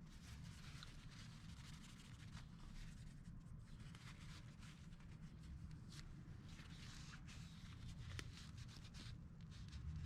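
Faint rubbing and scraping, with a few light clicks, from the crankshaft and bearing surfaces being wiped clean with brake cleaner before Loctite goes on.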